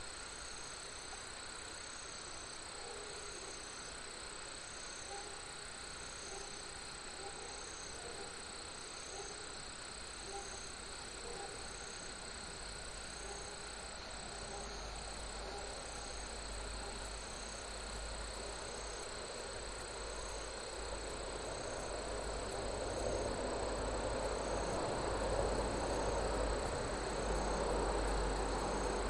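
Crickets and other insects trilling steadily in several high, unbroken tones, with one insect chirping about once a second. Over the last ten seconds a broad rushing hiss with a low rumble swells up under them.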